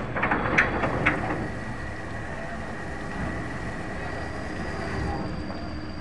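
Steady low rumble of a landing craft's engines as the vessel lies alongside the wharf, with a few sharp knocks in the first second or so and a faint high whine.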